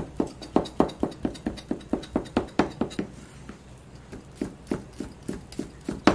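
Chef's knife rapidly chopping thin egg crepe into fine strips on a plastic cutting board, about four knife strikes a second. The chopping pauses for about a second in the middle, then starts again.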